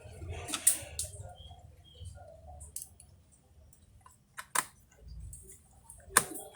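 Scattered sharp clicks and taps of a screwdriver and small screws being handled on a laptop's casing during reassembly, about half a dozen with pauses between them.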